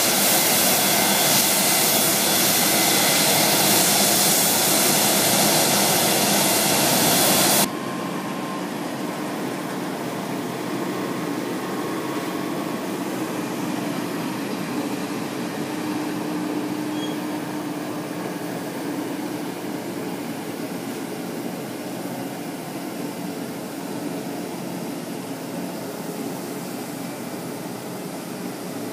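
Jet engine noise from a Boeing 737-200: a loud, steady hiss with a faint whine. It cuts off abruptly about eight seconds in, leaving a quieter, steady ramp noise with a faint low hum.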